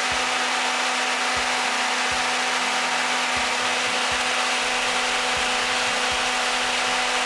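Electric radiator fan running steadily: the Daihatsu Move L175S's original fan motor fitted with a seven-blade fan, a constant rush of air over a steady motor hum, during an airflow test.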